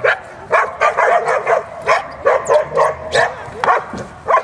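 A dog barking excitedly in a rapid run of short, high yapping barks, around three or four a second, with short pauses.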